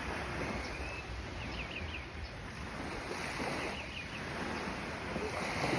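Sea water washing and splashing, with wind rumbling on the microphone and a few faint, high, short chirps in small groups.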